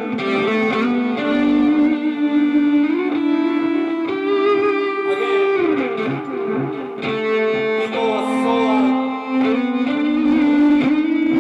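Live instrumental music: long held notes with sliding changes of pitch, without singing.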